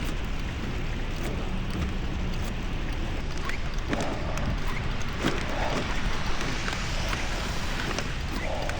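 Wind buffeting the microphone over the steady hiss of a bicycle ride through wet, snowy city streets, with passing traffic and a few light knocks about halfway through.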